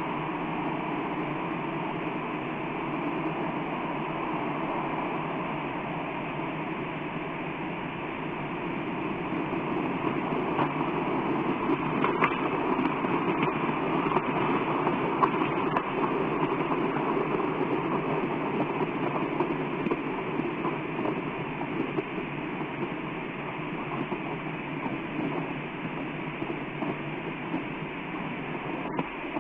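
Continuous rushing roar of a volcanic eruption, swelling louder about halfway through, with a few faint crackles.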